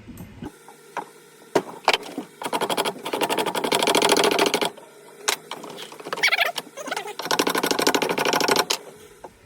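Fast, rhythmic scraping of a tool over wood in two long spells, with a few sharp clicks between them, as a hickory-type axe handle is shaped to fit the axe head.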